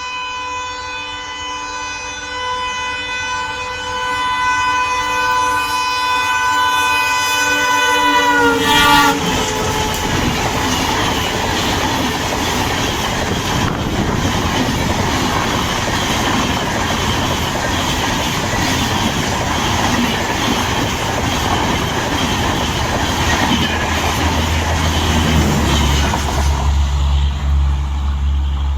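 Indian Railways train passing at speed: the locomotive's horn sounds a long blast that drops in pitch as it goes by about nine seconds in, then the coaches rush past with wheels clattering over the rail joints. A low steady hum starts near the end.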